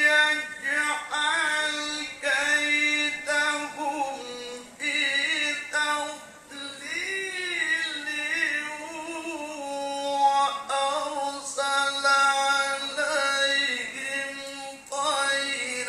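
A man's voice reciting the Quran in the melodic tilawah style, through a microphone: long held phrases with ornamented turns and glides in pitch, broken by short breaths.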